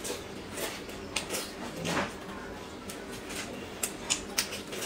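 Close-up eating sounds: irregular wet clicks and smacks of chewing and biting as a piece of chicken is held in the fingers and torn apart.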